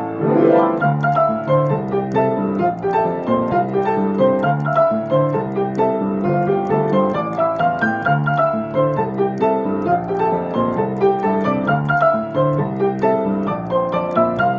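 Piano music: a steady stream of notes with a repeating pattern in the bass.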